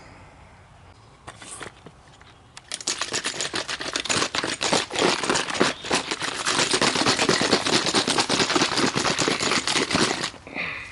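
A loud, rapid, dense rattling clatter of many small clicks, starting about three seconds in after a brief burst and cutting off near the end.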